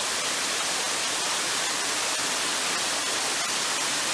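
Steady, even hiss of noise like static, cutting off abruptly just after the end.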